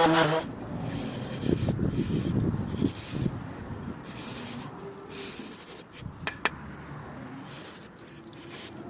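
Hand sanding: abrasive rubbed over the table's surface in repeated back-and-forth strokes with short pauses between them, and two sharp clicks about six seconds in.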